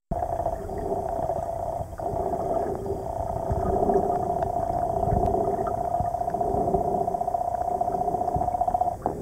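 Muffled underwater sound picked up while swimming: a steady droning hum, with low swishes of water moving around the camera.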